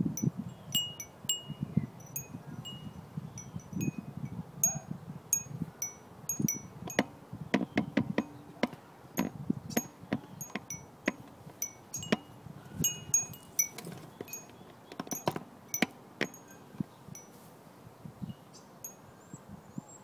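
Wind chime of metal tubes hung with seashell pieces and a glass ball, swaying and tinkling with many irregular strikes. The strikes are busiest in the middle and thin out near the end.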